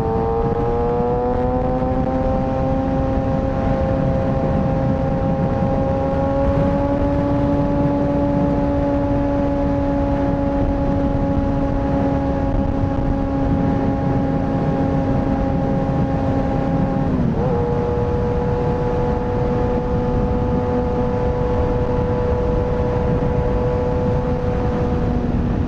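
Kawasaki ZX-6R's inline-four engine running at a steady high note, the pitch climbing a little over the first couple of seconds. About two-thirds of the way through the note drops sharply, then holds steady again a little lower.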